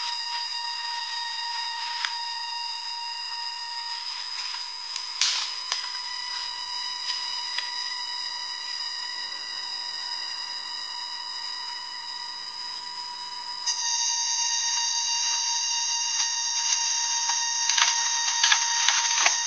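Cicadas droning steadily in a high, buzzing tone. The drone grows louder and shriller about fourteen seconds in. A few light clicks or knocks sound on top, one about five seconds in and several near the end.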